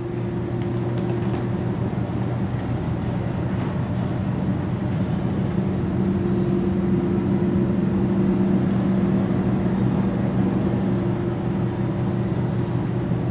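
A steady low mechanical hum with an even hiss over it. It grows a little louder over the first few seconds, then holds steady.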